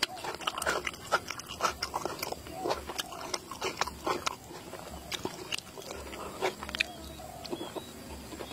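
Close-up eating sounds: a person chewing boiled egg in spicy sauce, wet mouth smacks and clicks coming thick and fast for the first half, then sparser.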